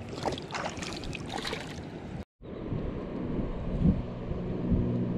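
Wind on the microphone over shallow lagoon water, with scrapes and rustles of hands working fishing line and a fish during the first two seconds. After a short cut, a steady low motor hum comes in about four seconds in.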